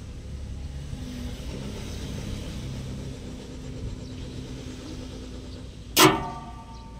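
Low rumbling background with a faint steady hum, then a single sharp knock about six seconds in that rings briefly, like metal being struck.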